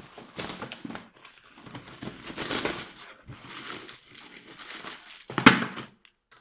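Plastic biscuit wrapper crinkling and rustling as it is torn open, with a loud sharp crackle about five and a half seconds in.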